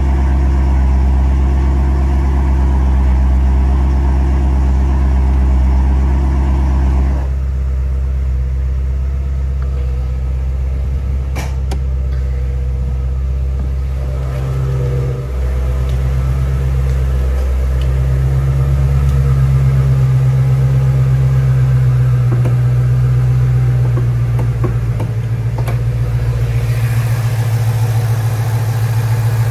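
Ford Shelby GT350R's 5.2-litre flat-plane-crank V8 idling steadily, with a single sharp click about a third of the way in.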